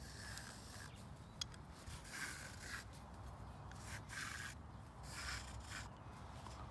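New braided cord being pulled by hand through the crank housing of a Treasure Garden AKZ umbrella. It makes about four short rubbing swishes as the cord slides through the hole, with a small click between the first two.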